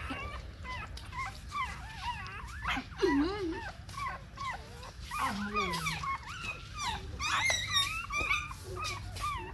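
Newborn puppies squeaking and whimpering: many short, high cries that bend up and down, one after another.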